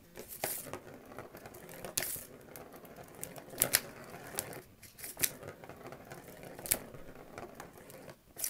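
Plastic ball rolling around the circular plastic track of a cat toy, knocked by a cat's paw, with irregular sharp clicks as it strikes the track's rim between stretches of rolling.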